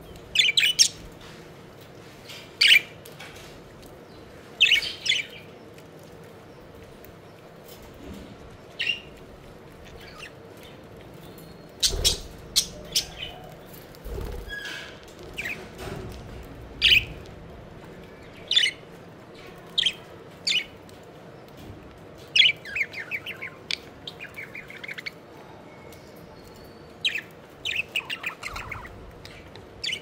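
Budgerigars chirping in short, separate calls every second or two, with runs of rapid chatter about three-quarters of the way through. There are a couple of dull knocks near the middle.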